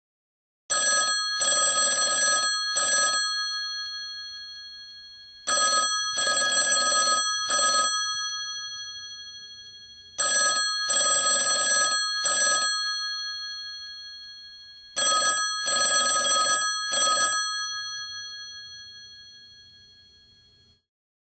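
Telephone bell ringing four times, about every five seconds. Each ring is a clatter of quick strikes in three bursts, short, long, short, and the bell tones fade away slowly before the next ring.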